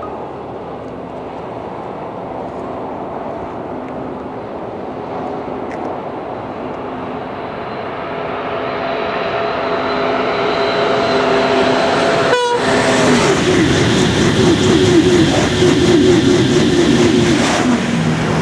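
High-speed train approaching and passing at speed: a rushing sound builds over several seconds with steady tones in it, which drop sharply in pitch as the train goes by about twelve seconds in, followed by a loud rush with a fast rhythmic rattle from the passing cars.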